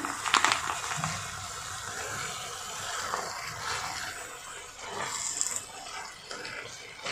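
Lumps of jaggery tipped into a hot steel kadhai of fried fenugreek seeds near the start, then a wooden spatula stirring them through with a steady sizzle and scraping.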